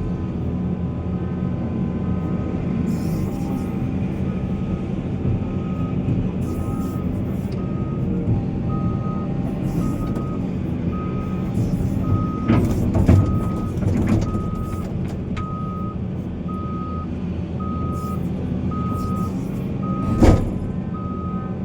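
Heavy diesel engines of mining machinery running steadily, with a reversing alarm beeping at a regular pace, clearest from a little under halfway in. A few loud knocks or clanks come through around the middle, and one sharp one near the end.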